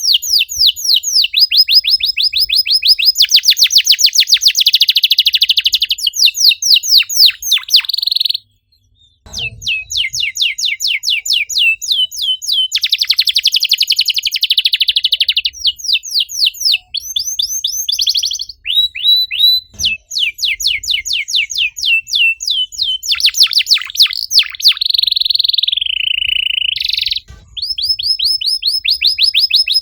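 Domestic canary singing fast, dense trills of rapidly repeated falling chirps, the rapid-fire 'gacor nembak rapat' song used as a lure to set other canaries singing. The song breaks off briefly about a third of the way in and again near the end, with a held buzzy note just before that second break.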